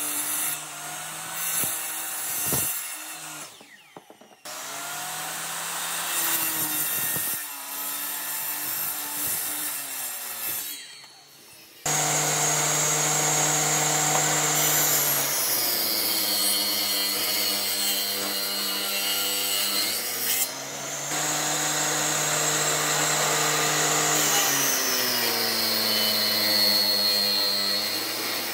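Electric power saws cutting old railway-sleeper timber. In the first part come short cuts separated by pauses. From about twelve seconds in, a table saw runs steadily, its pitch dropping as the blade bites into the sleeper and rising again as the cut eases.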